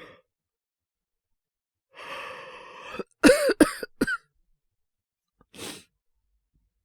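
A man's acted cough from a cold: a long breath, then three sharp coughs in about a second, and a short breath out near the end.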